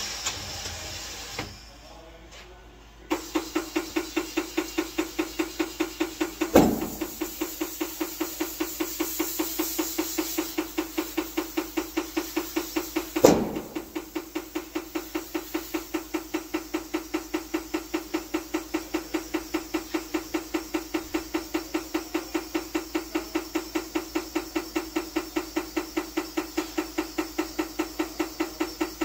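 Tire being inflated on a rim at a tire changer: a fast, even pulsing of air with a steady hum, broken twice by a sharp pop as the beads seat on the rim.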